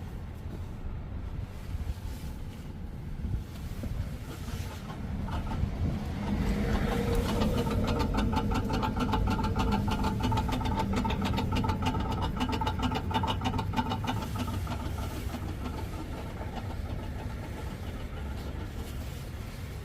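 Loud grinding, buzzing noise from a parked, switched-off 2024 Mazda CX-90 plug-in hybrid. It builds about six seconds in into a fast, rapid buzz over a low rumble, then eases a little near the end. It is an unexplained fault that comes on at random after the car has been driven in EV mode and parked.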